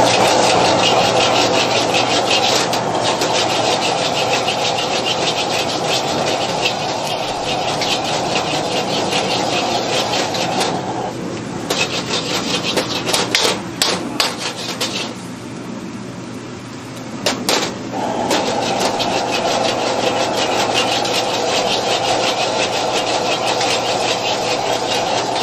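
A metal ladle scrapes and clanks rapidly against a steel wok as fried rice is stir-fried and tossed, over the steady roar of a gas wok burner. The burner roar drops out about eleven seconds in and returns about seven seconds later.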